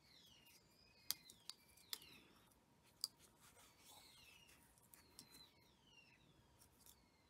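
Quiet handwork with a plastic tatting shuttle and thread: four sharp clicks between about one and three seconds in, over faint, high, repeated chirps that fall in pitch.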